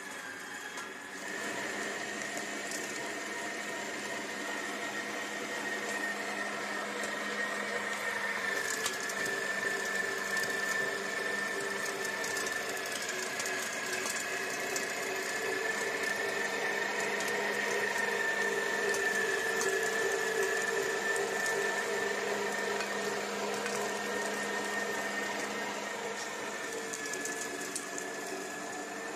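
Electric meat grinder running steadily as raw meat is fed in and minced, its motor whining with a pitch that wavers slightly.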